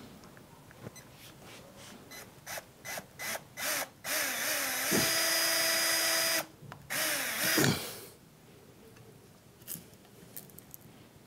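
Cordless drill with a 2.5 mm bit drilling a hole through a plastic clothespin. It gives several short trigger blips, then runs up to full speed for about two and a half seconds, pauses briefly, runs again for about a second, and stops about eight seconds in.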